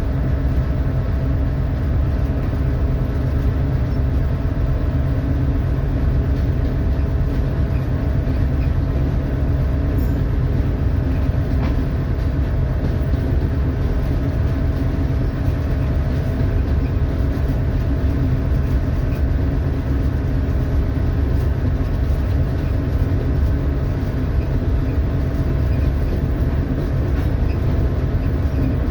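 Diesel locomotive engine running with a steady low drone, heard from inside the cab as the ballast train travels up the track, with an occasional faint click.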